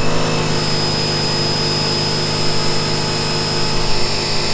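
Sun Joe SPX3000 electric pressure washer running under load with the spray-gun trigger held open through a 0-degree tip: a steady motor-and-pump hum with a high whine that rises in pitch as it spools up and then holds, over the hiss of the water jet.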